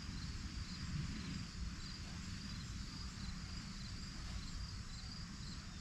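Crickets chirping, a steady train of repeated high chirps, over a low rumble.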